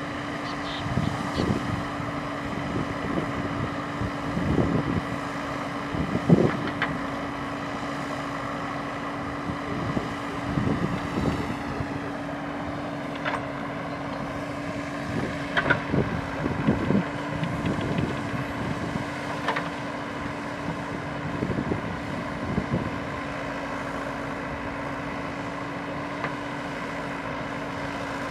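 JCB 3DX backhoe loader's diesel engine running steadily with a constant hum, under irregular clunks and thumps from the backhoe arm and bucket as it digs soil and dumps it into a tractor trailer. The loudest thump comes about six seconds in.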